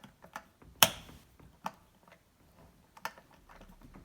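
Scattered clicks and knocks of a small wrench working a wheel nut onto the front axle of a plastic ride-on toy car, one sharp knock about a second in the loudest.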